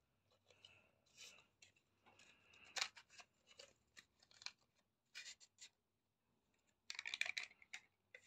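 Cardboard matchbox handled and slid across a laminate floor: short, irregular scrapes and clicks, with a denser run of scraping about seven seconds in.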